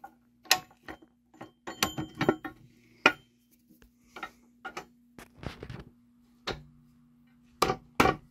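Irregular metallic clicks and knocks as the top plate and brass gearing of a lighthouse lens drive clock movement are handled and fitted together, with a close double knock near the end.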